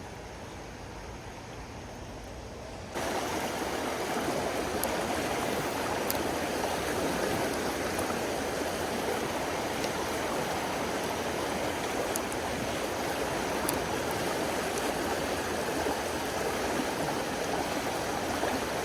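Creek water rushing steadily over riffles, stepping up suddenly in loudness about three seconds in and then holding steady.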